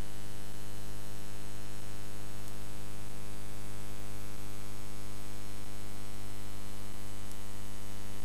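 Steady mains hum and buzz with tape hiss on a VHS transfer's otherwise blank audio track, unchanging throughout.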